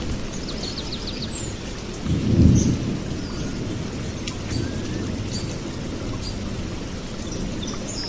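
Warthog grunting low over a steady low rumbling noise, with one louder grunt about two seconds in.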